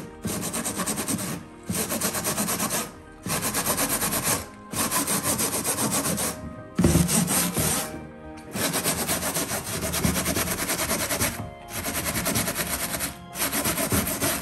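Stainless steel scourer scrubbing a plastic cutlery tray with rapid back-and-forth strokes, in about eight bursts of a second or so each with short pauses between them.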